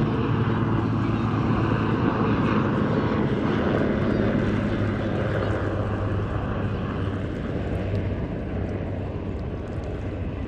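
Military helicopter flying low over the sea: a steady drone of rotor and turbine that slowly grows fainter over the last few seconds as it moves off.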